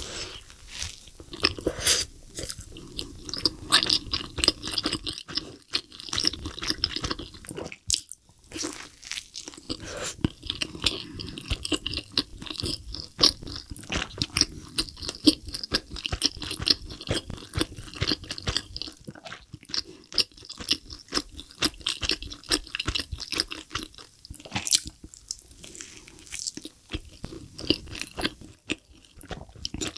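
Close-miked mouth sounds of a person biting into a double cheeseburger slathered in cheese sauce and chewing the full mouthful: steady, wet chewing with many small smacks and clicks, broken by a few short pauses.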